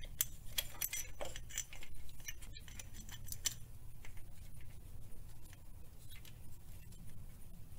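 Steel timing chain links clinking against each other and the camshaft sprocket as the chain is handled and fitted by hand: a scatter of light metallic clicks, busiest in the first few seconds and sparser after.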